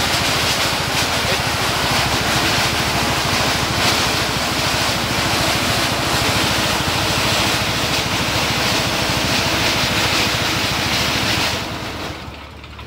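Old small petrol engine driving a homemade rice thresher by belt at speed: a steady engine drone under a loud rush of air from the thresher's spinning drum and winnowing fan. Near the end the engine is throttled back and the rush of air dies away to a low hum.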